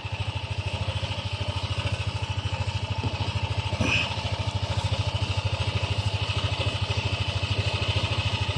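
Motorcycle engine idling steadily, a rapid even low putter.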